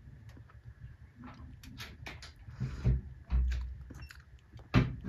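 Scattered clicks and knocks, with dull thumps a little under three seconds in, again about half a second later, and a sharper one near the end.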